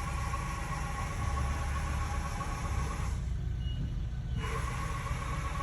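Southwest Industries Trak DPM5 CNC milling machine's Z-axis drive traversing: a steady whine that stops about three seconds in and starts again over a second later, over a constant low hum.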